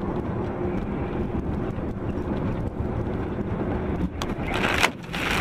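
Steady engine drone inside a truck's cab. About four seconds in, a loud rushing noise swells and cuts off sharply, then another burst comes near the end, as a truck trailer comes alongside in a cloud of road spray and slush.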